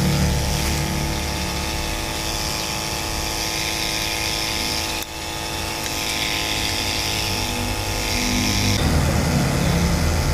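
A motor running with a steady hum, dropping out briefly about halfway through.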